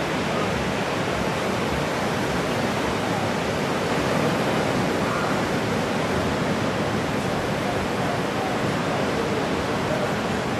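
Steady roar of ocean surf: an even rushing noise with no separate wave crashes standing out.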